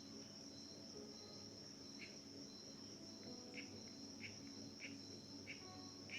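Near silence: faint room tone with a steady high-pitched hum and a few soft short clicks, coming about once a second in the second half.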